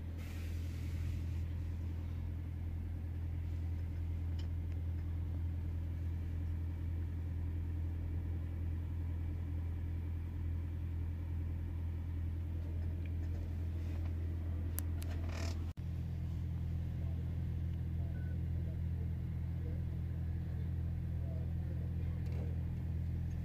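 Idling engine's steady low drone, heard from inside a truck cab. It breaks off for an instant about two-thirds of the way through, then carries on slightly higher in pitch.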